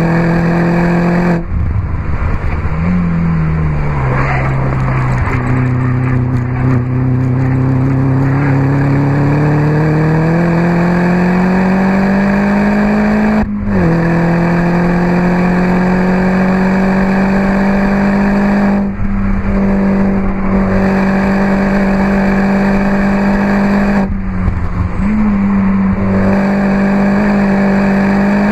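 Mini John Cooper Works R59 roadster's turbocharged four-cylinder with an Akrapovic exhaust, driven hard. The revs fall off about a second and a half in, then climb slowly under full throttle until an upshift about halfway through. After that the engine holds high revs, with brief throttle lifts near the end.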